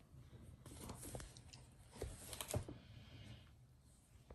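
Faint handling noises from a cardboard CD and DVD book being leafed through: a few light taps and clicks of stiff card pages, over a low steady hum.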